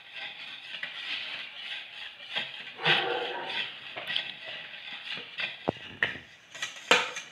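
Small kitchen knife scraping and tapping against a ceramic plate while slicing mango cubes off the peel, with a few irregular sharp clicks.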